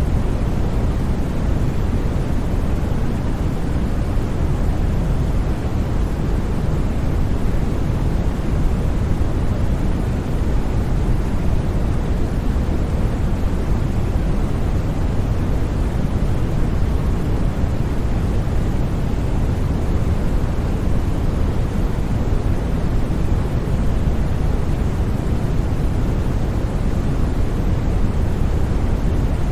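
Steady white-noise track for sleep: a constant, even rush with no breaks or changes, heaviest in the bass and with only a little hiss at the top.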